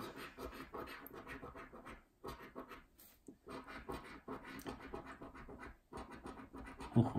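A coin scratching the latex coating off a scratchcard: quick rasping strokes in short runs, with brief pauses between them.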